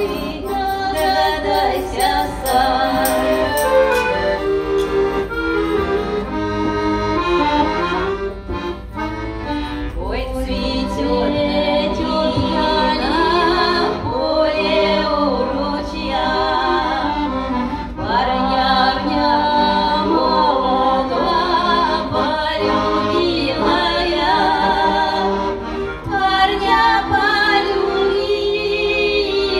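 Live Russian folk song: an accordion plays while two women sing, one with a tambourine jingling along in the first few seconds.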